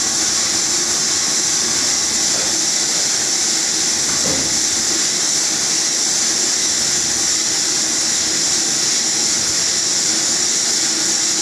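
Vertical machining centre (VMC) running, giving a steady high hiss over a faint low hum.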